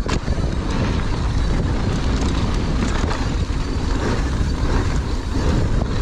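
Wind buffeting the microphone over the rattle and clatter of a downhill mountain bike riding a rough trail, with many short knocks.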